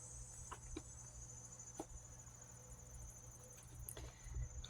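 Faint steady high-pitched cricket trill over quiet room tone, with a few soft faint clicks.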